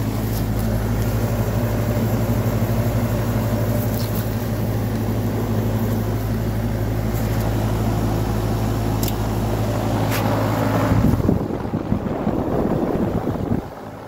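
A 2022 Tempstar N4H4 heat pump's outdoor unit running in heat mode, its Copeland scroll compressor giving a steady hum under the whoosh of the condenser fan. About eleven seconds in the steady hum stops and a couple of seconds of uneven noise follow; it goes quieter near the end.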